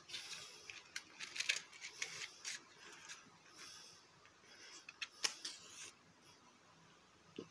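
Matchbox being handled: small clicks and rattles as it is opened and a wooden match taken out, then the match struck against the side of the box about five seconds in.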